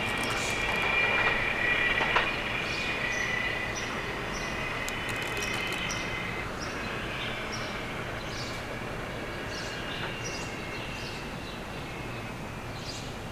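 New York City Subway train running away along curved track, its wheels squealing in steady high tones over the rumble of the cars. The squeal is strongest in the first few seconds and weakens, and the whole sound fades slowly as the train recedes toward the tunnel.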